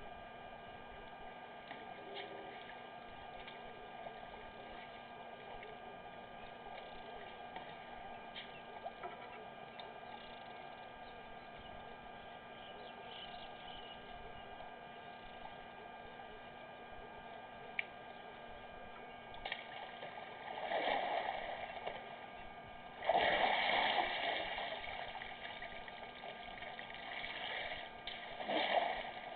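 Elephant bull drinking: water gushing and splashing in three surges, the first about twenty seconds in and the last near the end. A steady electrical hum runs underneath.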